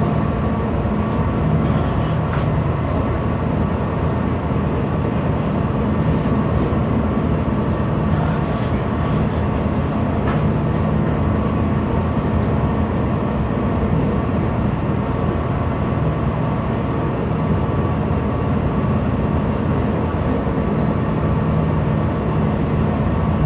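Steady drone of a ship's engine and machinery running at slow ahead, even in level throughout, with a few held hum tones.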